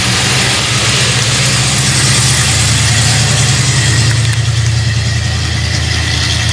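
Old Dodge ramp truck's engine running as the truck drives slowly past and away: a steady, low engine drone with a hiss above it.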